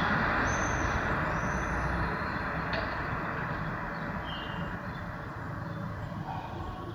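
Street ambience: a passing vehicle's road noise, loudest at first and slowly fading away, with a few short bird chirps over it.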